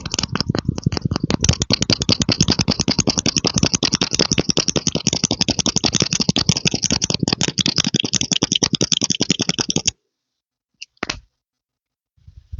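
Rapid, even clicking, about ten clicks a second, that stops suddenly about ten seconds in; one short sound follows a second later.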